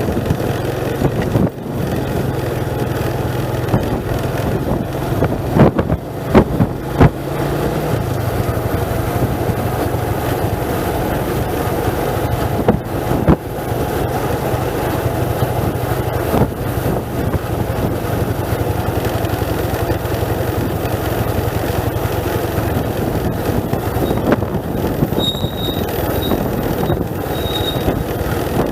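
Motorcycle engine running steadily while riding downhill. Its pitch drops about eight seconds in. A few loud knocks sound around six to seven seconds in, and a couple more sound later.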